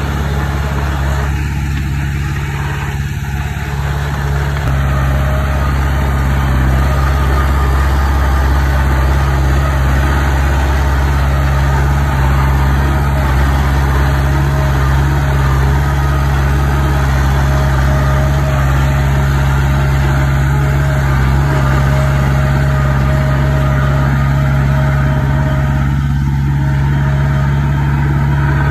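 Heavy diesel engine of construction machinery running steadily, stepping up a little in level a few seconds in and holding there.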